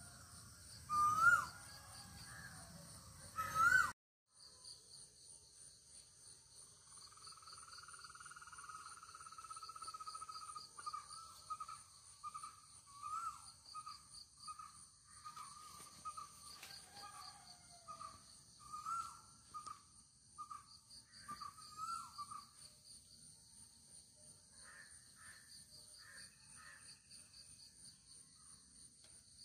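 Two loud crow caws in the first few seconds. After a brief break comes a steady, pulsing insect chorus, with a bird repeating short whistled notes for about fifteen seconds.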